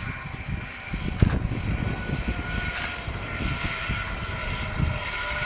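Zipline trolley pulleys running along the steel cable, giving a steady whirring whine whose pitch sinks slightly toward the end, over wind buffeting the microphone. A short knock comes about a second in.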